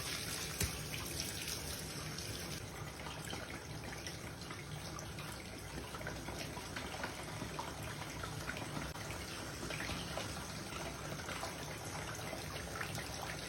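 Bath water in a tub: a steady faint trickle from the tap, with scattered small drips and splashes.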